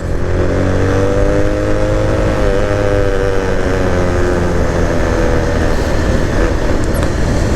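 A motor vehicle's engine running on the move, its pitch climbing a little and then easing back, over a steady low road and wind rumble.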